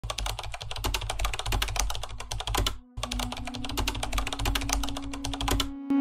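Rapid, dense clicking typical of keyboard typing, in two runs broken by a short pause just before halfway. A low steady tone comes in underneath during the second run.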